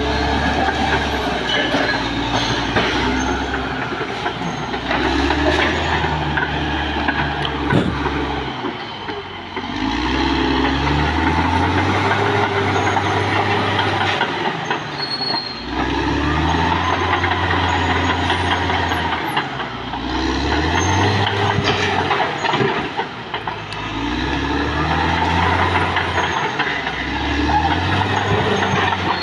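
Caterpillar D6R XL crawler dozer's diesel engine working under load, its revs rising and falling about every five seconds as it pushes and backs up, with the clatter of its steel tracks. A sharp knock about eight seconds in.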